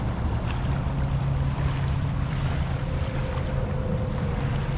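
Wind buffeting the microphone over small waves washing onto a sandy beach, with a steady low hum underneath and a faint thin tone joining about three seconds in.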